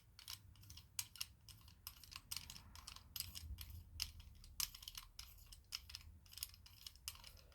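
Faint, irregular small clicks and taps of a metal lightsaber hilt being handled and unscrewed, a few a second.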